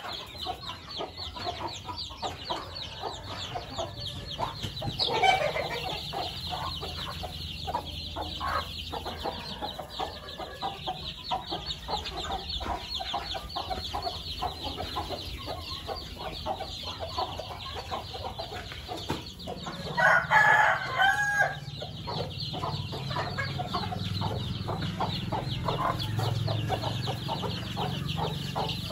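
A flock of Kadaknath and Aseel country chickens with many chicks: the chicks peep constantly in a dense chorus of short high chirps while hens cluck. A rooster crows once, about twenty seconds in.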